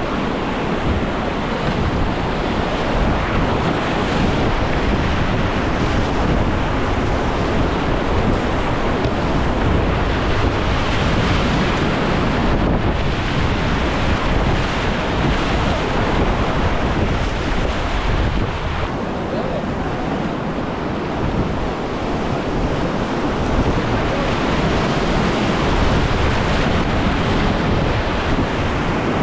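Whitewater rapids rushing: a loud, steady wash of churning river water, with wind buffeting the microphone.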